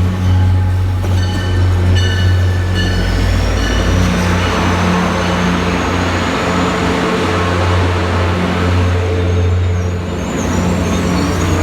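Commuter train led by a diesel locomotive pulling into a station, the engine giving a steady low drone. A thin high squeal rises slowly in pitch from about three seconds in.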